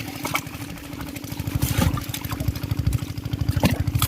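A small engine running steadily with a rapid, even low beat, with a few sharp clicks over it.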